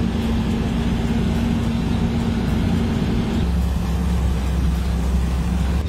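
Iveco Eurocargo truck's diesel engine running steadily while driving, heard from inside the cab. The engine note drops a step about three and a half seconds in.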